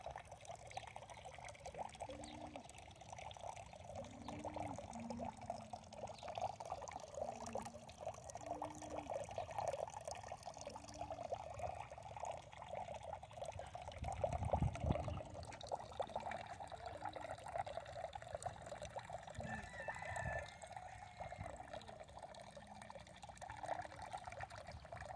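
Alpaca chewing a single strand of hay right at the microphone: a steady run of rapid, fine crunching from its jaw working the stem.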